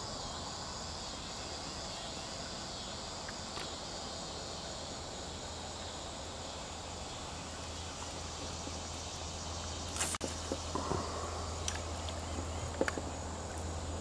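Insects chirring in a steady outdoor background, with a pulsing high buzz in the first few seconds. A few sharp clicks and knocks from about ten seconds in.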